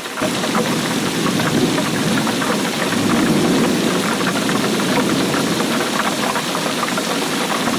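Heavy rain falling, a dense steady patter of drops with a low rumble.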